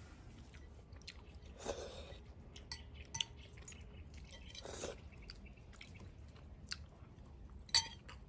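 Close-miked chewing of pasta, with light clicks of a metal fork against a ceramic bowl; the sharpest click comes near the end as the fork is set down in the bowl.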